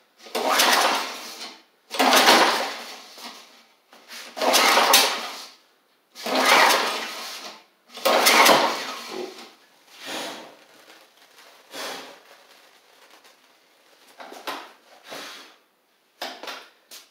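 Tecumseh engine on a Snapper Hi Vac push mower being pull-started by its recoil starter. Five hard rope pulls come about two seconds apart, then a few weaker ones. The engine cranks over on carb spray but does not catch and run.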